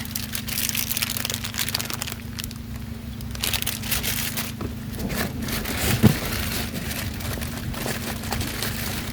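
Plastic snack packets crinkling and rustling as packs of peanuts are taken out of a cardboard box, with one louder knock about six seconds in. A steady low hum runs underneath.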